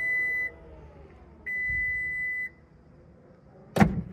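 Ford F-150 Lightning's powered frunk lid closing: a steady warning beep about a second long repeats every two seconds or so over a faint motor hum that slides down in pitch. Near the end the lid shuts with a single loud thump.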